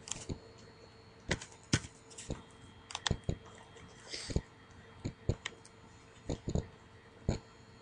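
Computer keyboard and mouse clicks: a dozen or so sharp single clicks at uneven gaps, some in quick pairs, while a value is typed into a settings box and windows are clicked between.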